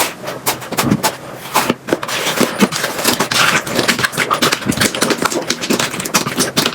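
Slime being squeezed and pressed by hand, giving a dense run of crackling, popping clicks with a hissier stretch in the middle.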